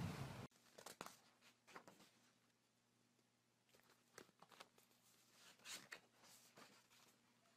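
A louder noise cuts off abruptly about half a second in, then faint, scattered crinkles and clicks of a paper book page as a cat bites and chews its corner.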